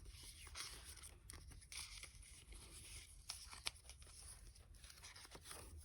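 Near silence with faint rustling and a few soft clicks of paper and vellum pages being handled.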